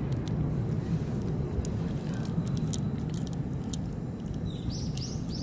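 A cat eating dry cat food, with small crunching and clicking sounds over a steady low rumble. A few short, high, rising chirps come near the end.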